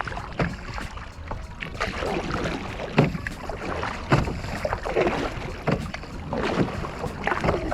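Water splashing and sloshing around a fishing kayak on the ocean, in irregular bursts about once a second, over a steady background of wind on the microphone.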